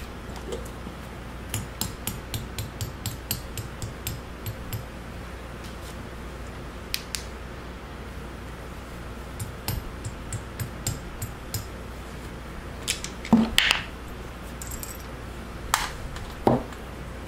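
Small metal clicks and knocks of tools and valve parts being handled on a workbench. First comes a run of about a dozen evenly spaced ticks, then scattered clicks, then a few louder knocks near the end.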